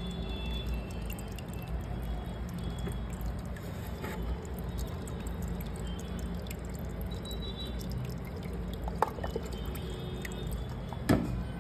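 Aquarium water trickling and bubbling over a steady low hum, with small drips and clicks throughout. There is a small sharp tap about nine seconds in and a louder one near the end.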